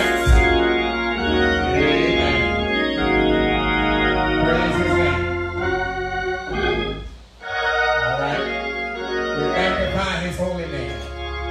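Organ holding sustained chords, with a man's preaching voice rising and falling over it and a brief drop in the sound about seven seconds in.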